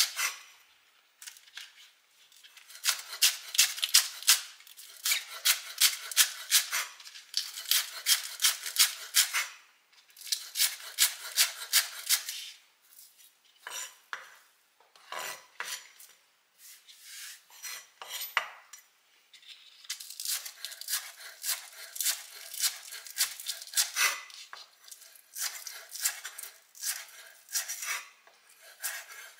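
Chef's knife slicing scallions on a wooden cutting board: quick runs of crisp knocks as the blade cuts through and taps the board, several cuts a second, with short pauses between runs.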